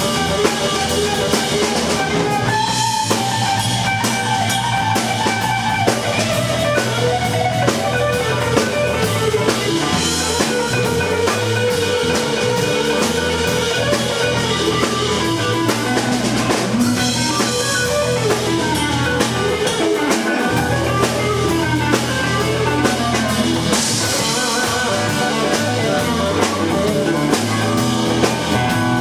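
Live instrumental jazz-funk fusion trio: electric guitar playing melodic lines over electric bass and a drum kit with cymbals.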